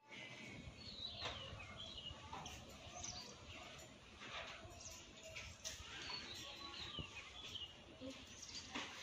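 Small birds chirping faintly and on and off, short quick chirps scattered through, over a low background hiss.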